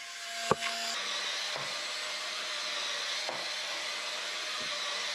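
Cordless electric spin scrubber running with a steady motor hum while its rotating brush head scrubs wet shower-floor tile grout, with a sharp click about half a second in.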